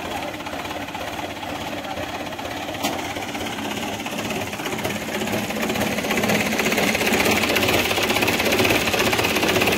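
Mahindra 475 DI tractor's diesel engine running with a fast, even knock, revving up and getting louder about six seconds in.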